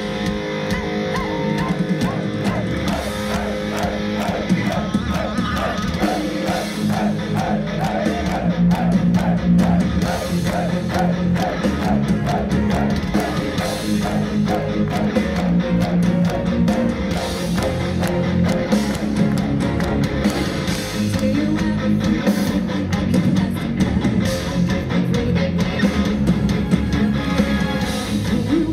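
Live heavy metal band playing: electric guitar and drum kit, with a woman singing.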